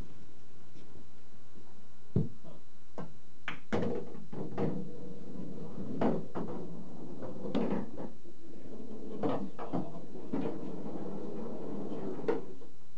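Pool shot on a bar-style pool table: a sharp click of the cue tip striking the cue ball about two seconds in, followed by a string of clacks and knocks from the balls hitting each other, the cushions and the pockets.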